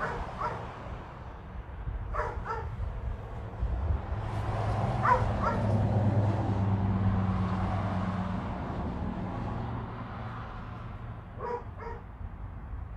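Dog whining and yipping in short high calls, mostly in pairs, four times, over a low steady hum that swells in the middle.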